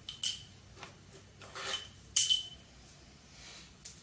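Metal hand tools clinking against engine parts: a few sharp metallic clinks, each ringing briefly, the loudest about two seconds in.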